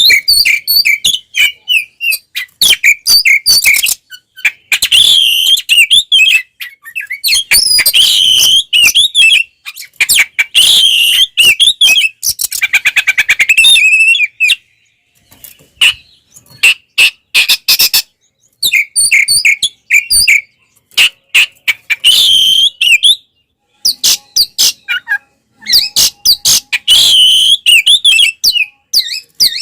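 Oriental magpie-robin (kacer) singing loudly in full, combative song: quick, varied whistled phrases broken by short pauses, with a fast buzzy rattle about halfway through.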